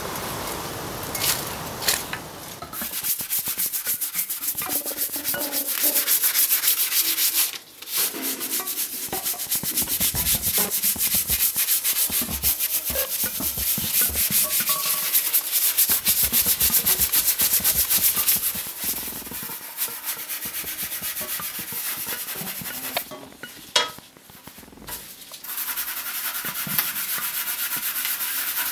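Fast, steady scrubbing strokes of a rag or brush over an etched metal printing plate, stripping off the brown varnish ground after the acid bath. The strokes break off briefly twice.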